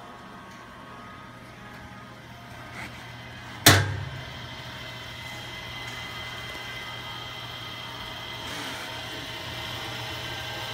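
Accumulation turntable's electric drive motor running with a steady hum and whine. About four seconds in comes one sharp metal click as the base cabinet is opened, after which the motor is heard louder and clearer.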